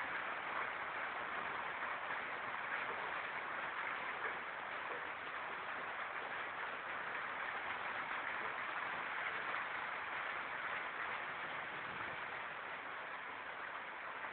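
Steady hiss of a heavy downpour of rain and hail beating on flat roofs and the street.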